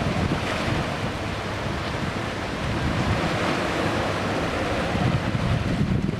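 Ocean waves washing over beach stones, with wind gusting across the microphone as a low rumble. A wave swells and recedes through the middle.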